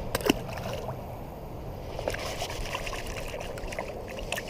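River water trickling steadily, with a few light clicks near the start and small scattered splashes or ticks later on.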